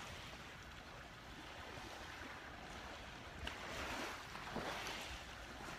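Waves washing on a beach: a steady low rush that swells briefly about three and a half seconds in.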